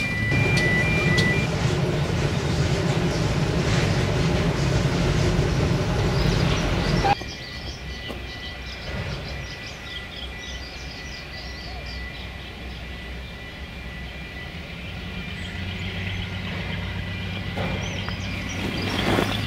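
GWR 2-8-0 steam locomotive No. 3850 working past with its train, a loud steady low rumble that cuts off abruptly about seven seconds in. It gives way to a quieter Class 42 Warship diesel-hydraulic locomotive's engine running, a low hum that grows stronger in the last few seconds, with birdsong.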